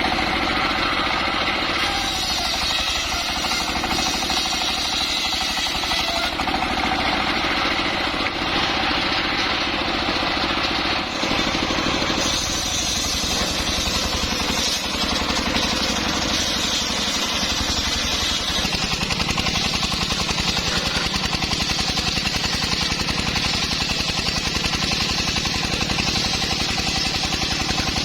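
Engine-driven sawmill circular saw running steadily with a fast engine beat. About two-thirds of the way in, the low beat becomes steadier and more even.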